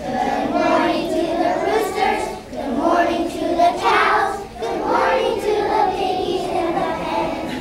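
A group of kindergarten children singing a song together in sung phrases, with short breaks between lines.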